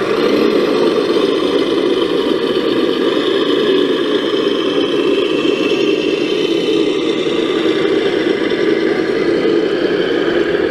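A vehicle engine running steadily at an even level, with no revving or stops.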